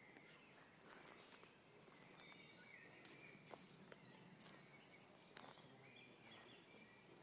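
Near silence: faint outdoor ambience with a few short, soft bird chirps and scattered light clicks.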